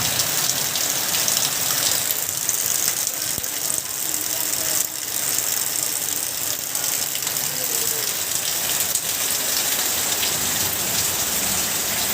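Steady rain falling, a dense even hiss with a fine patter of drops that eases for a moment about five seconds in.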